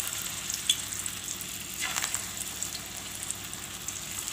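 Raw banana tikkis shallow-frying in hot refined oil: a steady sizzle full of small crackles. The sizzling flares briefly about two seconds in as another patty is laid into the oil.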